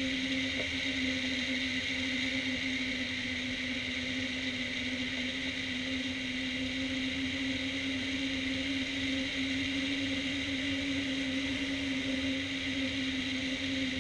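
Wind rushing over a hang glider and its wing-mounted camera in steady flight, with a steady low humming tone running under it.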